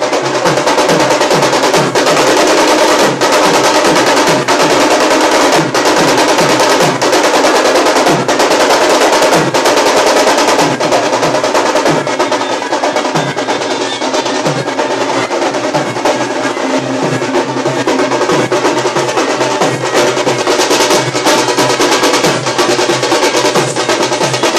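Khalu baja band playing: several shoulder-slung barrel drums beaten with sticks in a fast, dense rhythm, their low strokes dropping in pitch, with a wind instrument holding notes over the drumming.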